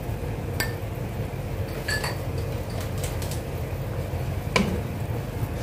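Sauce cooking in a frying pan on a gas stove with a steady hiss, broken by three light clinks of a kitchen utensil. The last clink, near the end, is the loudest and has a dull knock to it.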